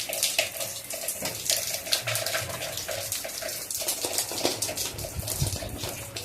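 Water running from a kitchen tap into a sink, with splashing and frequent small clicks and knocks from meat and utensils being handled.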